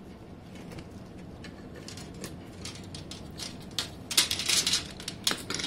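Hand lever tube bender working a copper fuel pipe: light scattered clicks and creaks, then a rapid cluster of loud metallic clicks and scrapes about four seconds in, with two more sharp clicks near the end.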